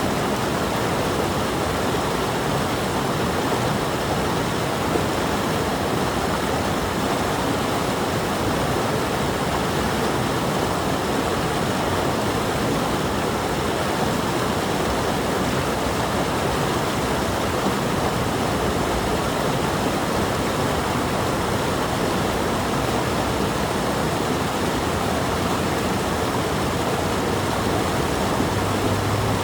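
Stream water flowing with a steady, unbroken rush.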